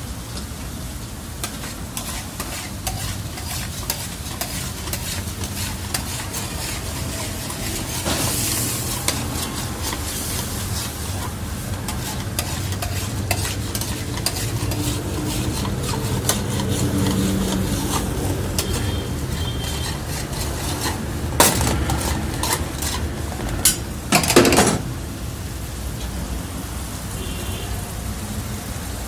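Chicken karahi sizzling and bubbling in a large steel karahi wok while a flat metal spatula stirs it, scraping and clicking against the pan. A few sharp metal clanks and a louder scrape come about three quarters of the way through.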